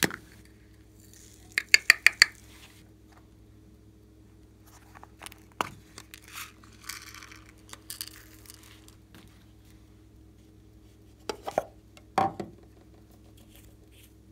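Hard plastic cosmetic containers being handled: sharp clicks and taps, with a quick run of four loud clicks about two seconds in, light rattling and scraping in the middle, and a few more clicks near the end as a small bottle is opened.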